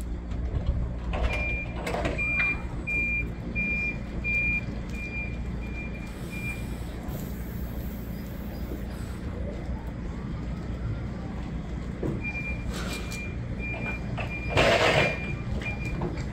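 Forklift engine running, with its reversing alarm sounding a high beep about one and a half times a second in two spells, the second near the end. A few knocks early on and a short loud hiss near the end stand out over the engine.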